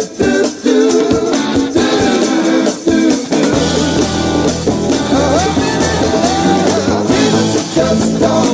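Rock song playing: choppy stop-start chords at first, then about three and a half seconds in a bass line and the full band come in.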